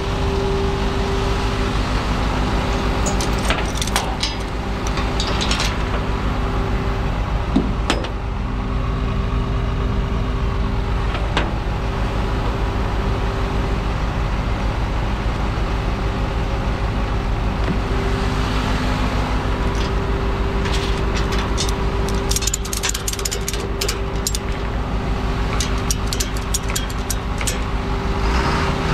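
Truck engine running at a steady idle with a constant hum over it, and scattered clicks and scrapes that come thicker over the last several seconds.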